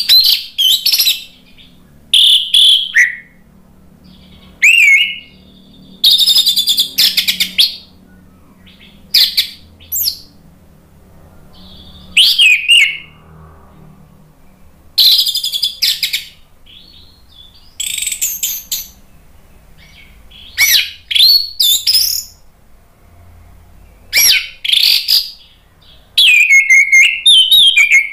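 Orange-headed thrush (anis merah) singing loudly: short phrases of varied whistles, quick notes and pitch glides, a new phrase every second or two with brief pauses between.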